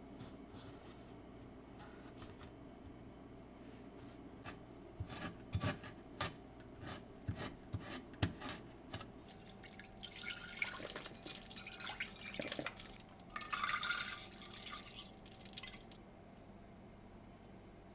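Chef's knife on a plastic cutting board splitting a vanilla bean: a run of sharp irregular taps, then a longer hissing scrape as the seeds are scraped out of the pod, over a low steady hum.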